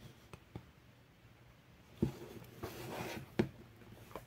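Hands turning over and handling a small hard cardboard card box: soft rubbing and scraping with a few light clicks and knocks, the two clearest about two and three and a half seconds in.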